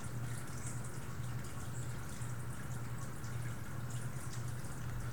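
Steady low hum over an even hiss, with faint light ticks of trading cards being handled.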